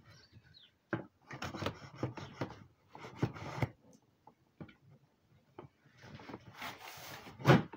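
Cardboard box being opened and handled: scissors and hands scraping and rubbing on the cardboard in short stretches, then a longer rustle as the contents are moved, ending in a sharp knock.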